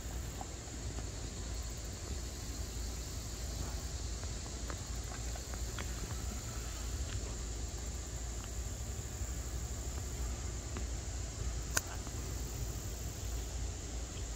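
Raccoon eating dry cat food from a stainless steel bowl, with scattered faint crunches and clicks and one sharper click about twelve seconds in, over a steady high-pitched insect chorus.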